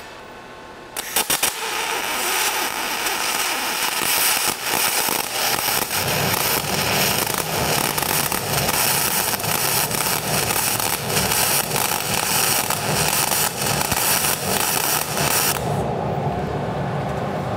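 MIG welding arc on carbon steel, 0.035-inch hard wire shielded with pure argon at about 28 volts: a few starting clicks, then a continuous crackle and pop for about fourteen seconds that cuts off near the end, leaving a steady low hum. The arc is running real erratic rather than in a stable spray transfer, the sign of pure argon on carbon steel.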